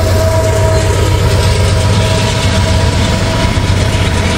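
Norfolk Southern diesel-electric locomotive running as the rear DPU and powered up under load as it passes close by. Its engine gives a loud, steady low drone with a high whine over it that fades about a second in.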